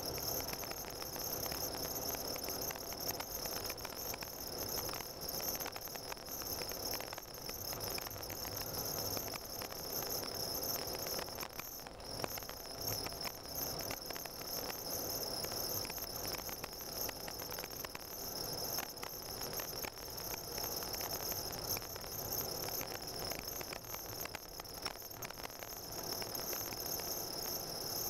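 Car driving slowly on a snow-covered road, heard from inside the cabin: steady engine and tyre noise under an unchanging high-pitched whine, with small ticks here and there.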